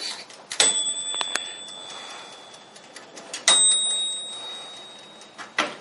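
Black & Decker countertop toaster oven's timer bell dinging twice, about three seconds apart, each ding a sharp strike that rings on and fades, as the timer knob is turned to off.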